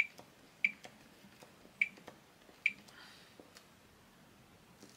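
Fluke 12 multimeter's front-panel buttons pressed four times, each press a sharp click with a brief high beep, with fainter clicks between. The buttons are stiff from dirt between the switch contacts and have to be pressed hard to change between capacitance and resistance.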